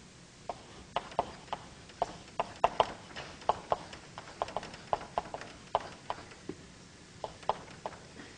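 A string of irregular, sharp clicks and taps, about three a second and loudest a little under three seconds in, as code is written out for a loop.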